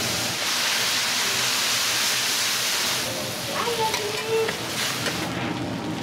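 Yakisoba noodles hissing and sizzling on a hot iron griddle as water poured on them turns to steam, loudest in the first half. Then metal spatulas scrape and clack on the griddle plate as the noodles are lifted.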